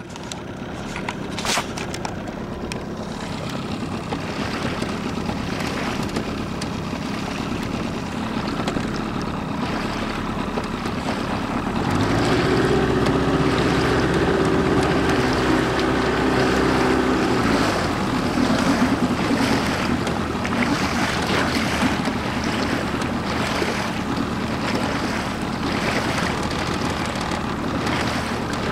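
Bass boat running at speed across choppy water: steady outboard motor drone with water rushing and splashing along the hull and wind on the microphone. About halfway through, the engine hum comes through louder and clearer for several seconds.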